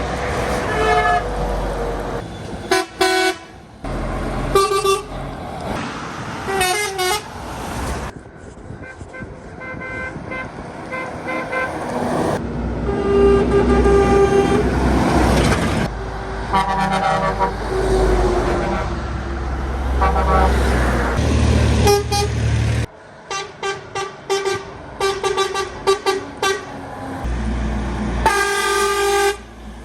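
Truck horns sounding in a run of separate clips: long chord-like blasts and quick strings of short toots over the low rumble of truck engines. The sound changes abruptly from one clip to the next.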